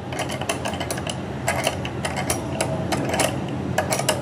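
Irregular light clicks and taps of small metal parts being handled and fitted by hand while a scooter engine is put back together.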